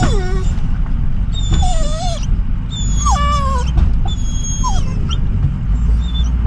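A dog whining in a series of high, falling whines, about one a second, over the low steady rumble of the truck's engine.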